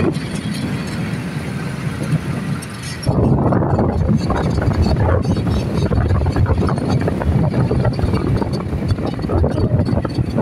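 Wind buffeting the microphone on a moving motorcycle, a loud, uneven low rush with the bike's riding noise beneath, dipping briefly and swelling again about three seconds in.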